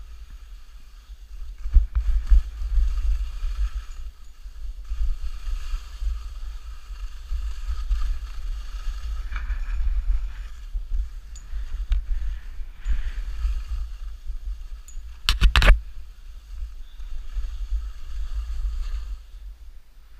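Skis scraping and hissing over snow in waves during a downhill run, with wind rumbling on the microphone. A loud clatter comes about fifteen seconds in.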